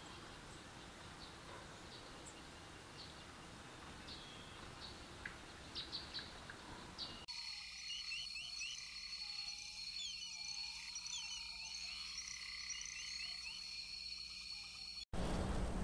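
Added nature ambience. At first a soft outdoor background with a few faint chirps, then, about seven seconds in, a quiet forest chorus: steady high buzzing tones, many quick chirping calls and some lower swooping calls. It cuts off abruptly near the end.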